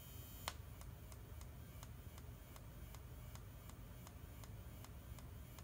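Faint, regular ticking, about three ticks a second, of a strobe flash tube firing from a Whelen HDA-DF-14 strobe power supply under test, a sign that the output is working. A high thin whine from the supply stops at a louder click about half a second in.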